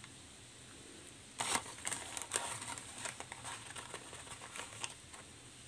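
Light clicks and rustles of a metal spoon scooping custard powder and tipping it into a glass bowl of milk, the loudest about a second and a half in.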